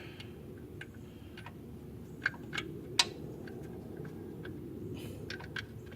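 Scattered light metallic clicks and taps as a bolt is handled and fitted by hand up under the engine, the sharpest about three seconds in, over a low steady hum.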